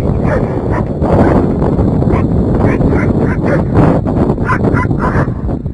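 Dog barking repeatedly at a kite, about two barks a second, over heavy wind noise on the microphone.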